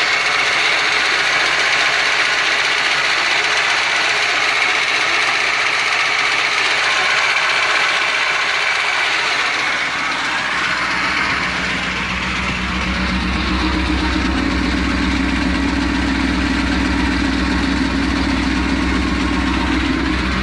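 Lada 2109's four-cylinder carburettor engine idling cold with the choke pulled. About ten seconds in, its low engine note becomes much stronger and steadier.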